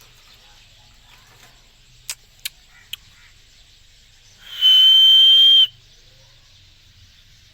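Green parrot giving one loud, shrill, whistle-like call held at a steady pitch for about a second, a little past the middle, after three short sharp chirps a couple of seconds in.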